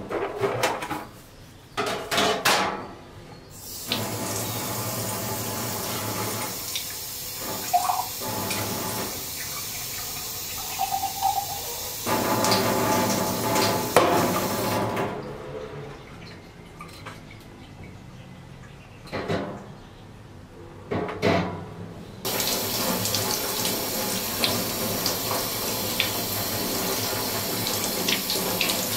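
Kitchen tap running into a stainless steel sink, with hands rinsing under the stream. A few clatters and knocks of items being handled come first. The water runs steadily, stops for several seconds in the middle, then runs again.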